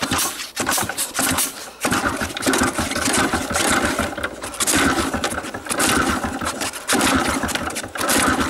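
Soviet IZh motorcycle's two-stroke engine being kick-started cold with the enricher on. A series of kicks turn it over in repeated spluttering bursts, without it settling into a steady run.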